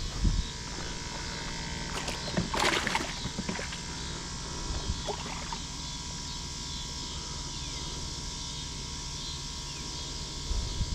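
Steady outdoor pond-side background: a high, even hiss like insects calling and a low rumble like wind on the microphone. A few short knocks come near the start, and a brief rush of noise, the loudest thing here, comes about two and a half seconds in.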